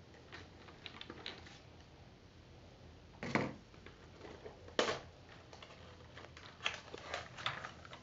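Small clicks and rustles of hands rummaging among plastic items in a plastic bowl, with two louder knocks about three and five seconds in.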